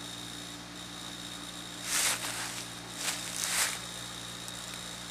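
Two brief rustling bursts in dry leaves and brush, about two seconds in and again about three to three and a half seconds in, over a steady low mechanical hum.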